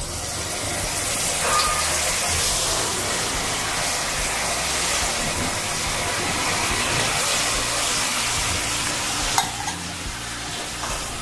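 Raw banana pieces deep-frying in hot oil in an iron kadhai: a steady sizzle of bubbling oil, with one short sharp click about nine seconds in.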